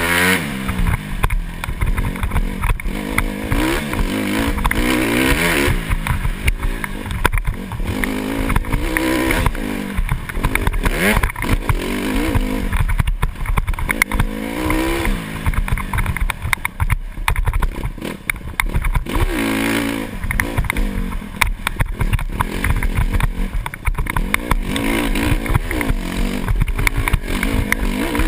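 Dirt bike engine heard from the rider's helmet, revving up and falling back over and over as the throttle is worked along a rough trail, with many short knocks and clatter from the bumps.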